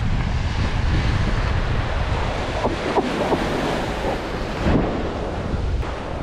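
Small surf waves washing up on a sandy beach, with wind rumbling on the microphone.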